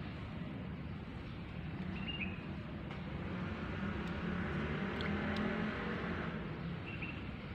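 A motor vehicle engine running steadily and swelling louder for a few seconds near the middle, with two short high chirps.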